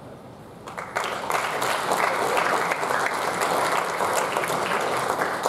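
Crowd applauding, breaking out about a second in and holding steady with dense clapping.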